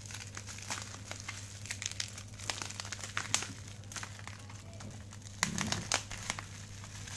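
Plastic bubble-wrap packaging crinkling and crackling in the hands as it is unwrapped, in irregular sharp crackles.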